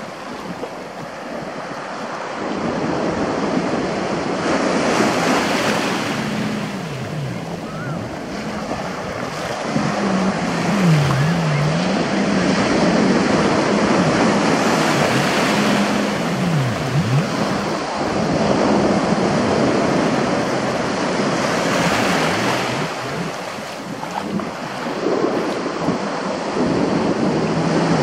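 Ocean surf washing in, swelling and easing every few seconds. A low hum runs underneath and now and then dips in pitch and rises back.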